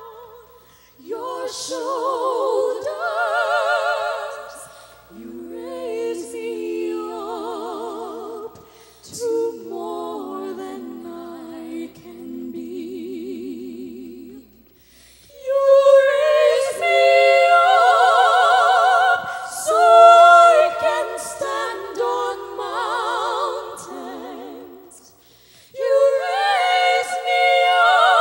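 A female vocal trio sings in close harmony without accompaniment, with a wide operatic vibrato. The phrases are separated by short pauses, and the singing grows louder and fuller from about halfway through.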